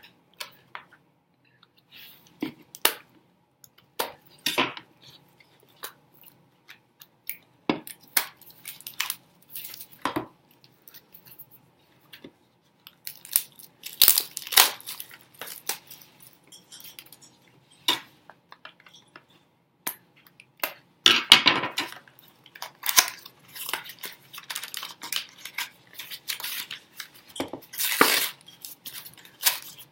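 Plastic wrap and cardboard being torn open and crinkled as a sealed box of 2018-19 Upper Deck SP Game Used hockey cards is unwrapped, in scattered rustles and clicks that grow busier and louder in the last third.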